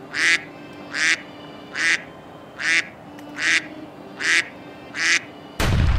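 Homemade signaling whistle blown in seven short, harsh, quack-like blasts, evenly spaced a little under a second apart. A sudden loud low rumble cuts in near the end.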